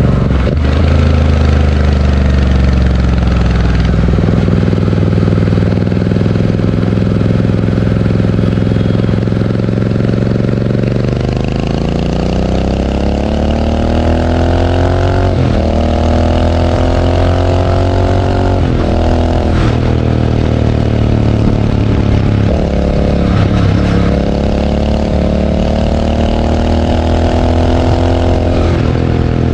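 Royal Enfield Interceptor 650's parallel-twin engine through Barrel Atom slip-on mufflers with the dB killers removed. It runs steadily at first, then from about ten seconds in the revs climb slowly and drop back sharply several times.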